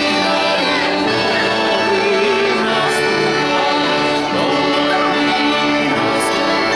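Music: a melody of long, held notes over a steady accompaniment, with no pauses.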